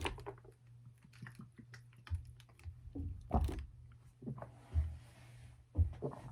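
Scattered wet mouth clicks and lip smacks from a mouth still working sticky earthworm jerky, with a few dull low thumps.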